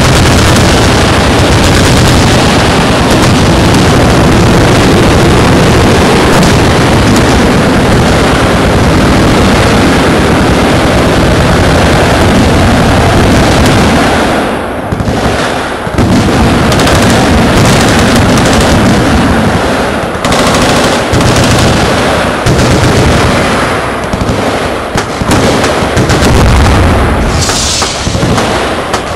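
Many machine guns firing at once from a firing line: a continuous dense wall of automatic fire that eases briefly about halfway through, then goes on in overlapping bursts.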